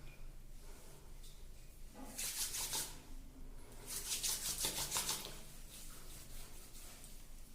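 Two bursts of rapid, scratchy rubbing, each about a second long, the second a little longer and louder.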